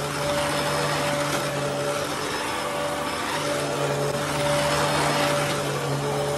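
Dyson upright vacuum cleaner running and being pushed over carpet: a steady motor hum with a higher whine over a rush of air, rising and falling slightly as it moves back and forth.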